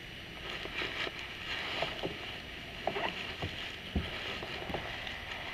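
Light knocks and clicks over a soft hiss from a kayak and the gear in it being handled, with two sharper knocks a little past the middle.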